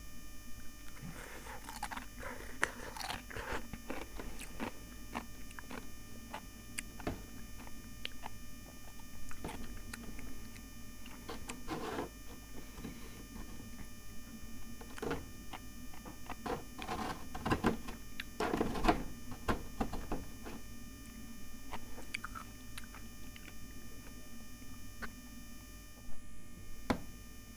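Freezer frost and ice crunching in short, irregular crackles, with a denser, louder cluster about two thirds of the way through.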